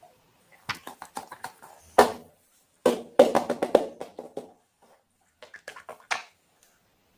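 Handling of plastic fidget toys: clusters of quick clicks and taps, loudest in a short burst about two seconds in and a longer busy stretch just after the middle.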